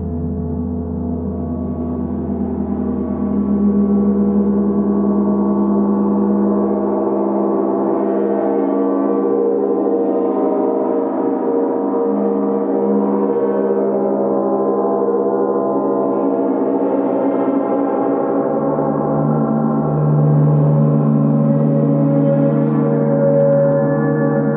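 Three large gongs played continuously, their long ringing tones overlapping in a dense, sustained wash that builds in loudness over the first few seconds. A deep low tone fades out about a third of the way in, and a new lower tone swells in about three-quarters of the way through as a different gong is struck.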